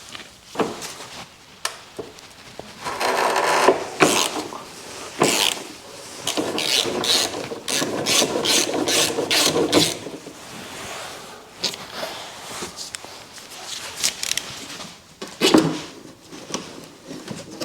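Hand-tool and metal-handling work under a car's rear subframe: repeated clicking and rasping strokes in uneven runs, densest in a quick series in the middle, with scrapes and knocks between.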